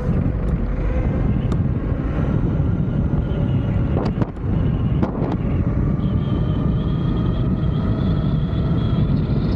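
Wind rushing over the microphone while riding a scooter, with a faint steady motor whine that rises slightly in pitch over the second half. A couple of sharp knocks come about four and five seconds in.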